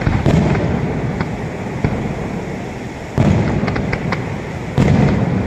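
Aerial fireworks display: three heavy booms from bursting shells, at the start, about three seconds in and near the end, each trailing off in a rumbling echo, with scattered sharp cracks between them.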